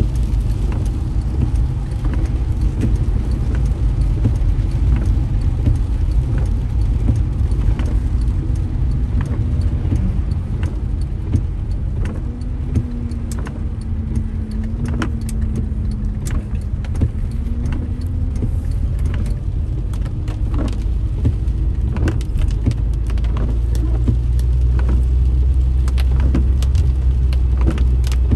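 Inside a moving car on a wet road: a steady low rumble of engine and tyres, growing louder near the end, with scattered sharp clicks and ticks throughout.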